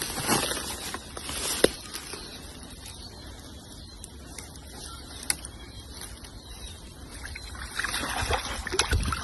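River water trickling under a steady low rumble, with two sharp clicks; the noise grows busier and louder near the end.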